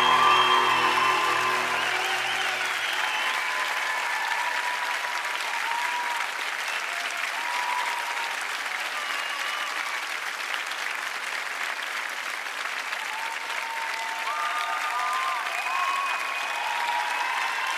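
Large concert audience applauding, with scattered cheering shouts, as the band's last held chord fades out over the first three seconds.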